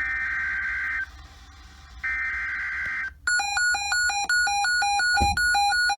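Emergency Alert System SAME header: two one-second bursts of buzzing digital data tones, a second apart. Then, about three seconds in, rapid electronic beeps that alternate between a higher and a lower pitch, about five a second.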